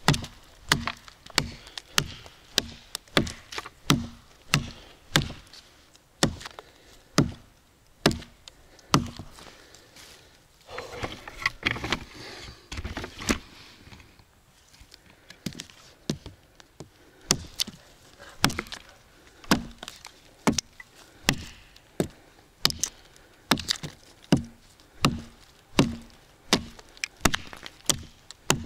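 Viking axe chopping into a tree trunk, sharp wooden knocks at a steady pace of about two strokes a second. The strokes break off for a few seconds of rustling around the middle, then carry on.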